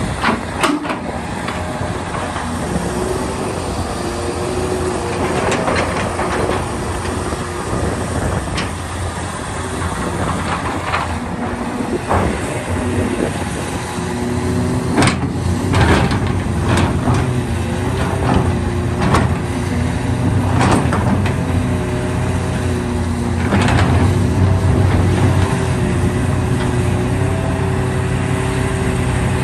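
Large hydraulic excavator at work digging: its diesel engine runs continuously under load with a steady hum, punctuated by many sharp clanks and knocks. It grows louder about halfway through.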